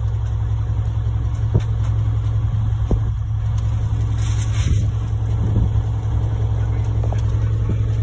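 Concrete mixer truck's diesel engine running steadily with a low drone, with a few short sharp knocks over it.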